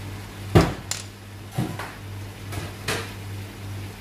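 Kitchen utensils knocking and clinking against a stainless steel pot of broccoli and potato cubes: about five separate knocks, the loudest about half a second in.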